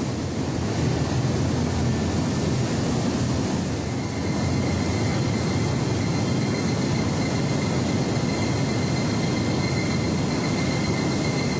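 Steady, loud running noise of a stone conveyor belt fed by Eriez vibratory feeders, crushed stone streaming onto the moving belt. A faint high whine joins about four seconds in.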